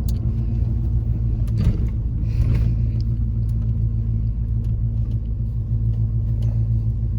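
LS-swapped truck's V8 engine idling steadily, heard from inside the cab, with a few faint clicks.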